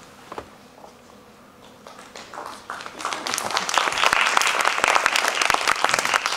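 Audience applauding, starting about two seconds in and quickly building to steady, dense clapping.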